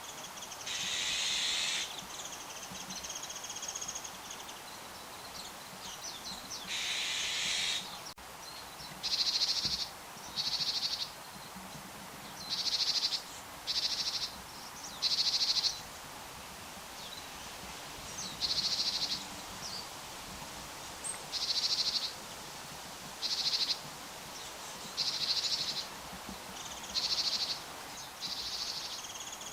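A bird giving short, harsh, buzzy calls over and over, about one every one to two seconds. The first two are longer and lower than the rest.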